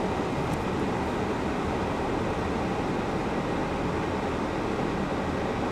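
Steady rumble of a vehicle heard from inside its cab, with no distinct events.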